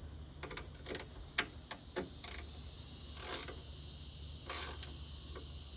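Hand ratchet wrench clicking as a bolt holding the tractor's fuel tank is turned: scattered single clicks and a couple of short rasping runs of the pawl.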